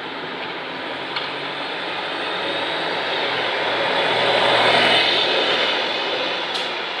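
Single-decker bus driving past close by. Its engine and tyre noise swells to a peak about five seconds in, then fades as it moves away.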